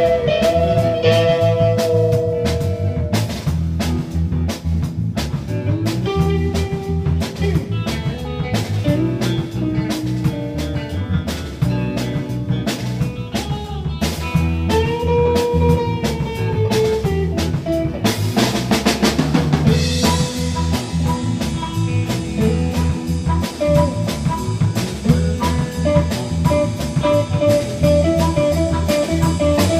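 Blues band music: electric guitar lead lines with bent notes over a steady drum-kit beat, with a dense crash of cymbals about two-thirds of the way through.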